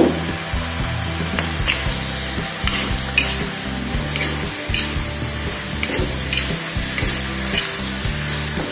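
Fried eggplant slices sizzling in a wok while a metal spatula stirs and turns them, with repeated scrapes and taps of the spatula against the pan.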